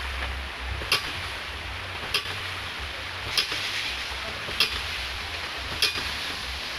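Hydraulic ram pump running: its waste valve slams shut with a sharp metallic clack about every 1.2 seconds, five times, over the steady rush and splash of drive water spilling from the valve. Each clack is the waste valve closing on the moving water, the water-hammer stroke that drives water up the delivery pipe.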